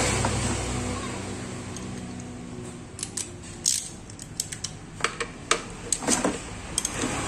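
Irregular metal clicks and taps of a socket ratchet wrench being fitted and worked on the cooling fan's centre hub nut, starting about three seconds in. A low steady hum fades away over the first two seconds.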